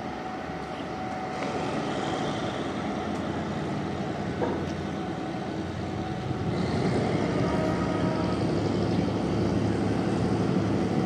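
Low vehicle engine rumble over steady traffic-like hiss, growing louder in two steps, about one and a half and six and a half seconds in.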